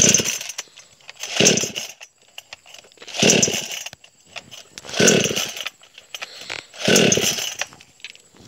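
H&L 5200 two-stroke chainsaw being pull-started: five pulls on the recoil starter, each turning the engine over in a short burst, without the engine catching and running between pulls.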